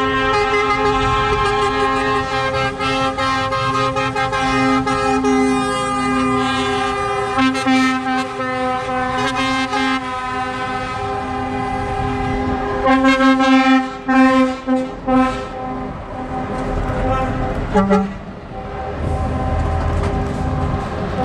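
Lorry horns sounding long, sustained chord-like blasts as convoy trucks pass, with several louder short blasts about thirteen to fifteen seconds in and one more a few seconds later. Truck diesel engines rumble underneath near the end.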